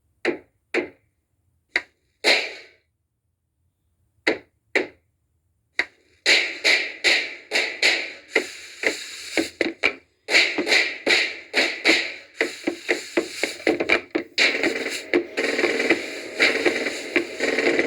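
Banging and clattering: a handful of separate sharp bangs over the first six seconds, then a fast, dense run of bangs and clatter.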